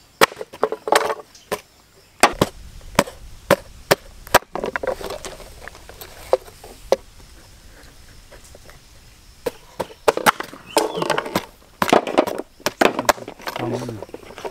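Dry coconut (copra) being chopped and cracked: sharp, irregular knocks and cracks in quick succession.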